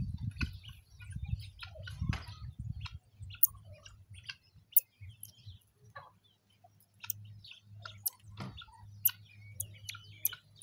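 Short, sharp high-pitched chirps at irregular intervals, over a low rumble that is heaviest in the first few seconds.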